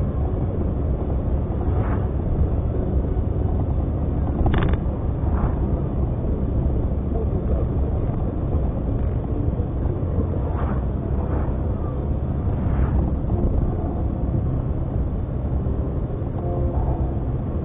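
Steady low rumble of a car's engine and tyres on asphalt, heard from inside the moving car's cabin, with a few brief clicks, the sharpest about four and a half seconds in.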